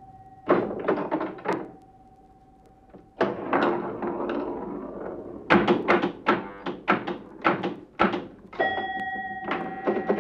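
Vintage pinball machine in play: rapid runs of mechanical clicks and knocks with a short lull about two seconds in, and steady bell-like ringing tones sounding over the clatter near the end.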